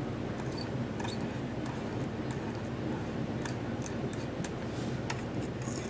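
Steady low room hum with faint, scattered ticks and scratches of a fine metal-tipped applicator pen drawing on glass.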